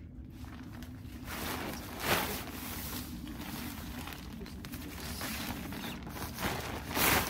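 Tent fabric rustling and swishing as the tent's last outer layer is handled and fitted, with louder swishes about two seconds in and near the end, over a steady low hum.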